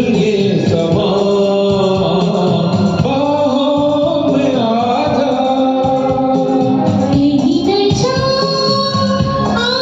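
Singing a Hindi song over a karaoke backing track, the voice holding long notes with slides between them.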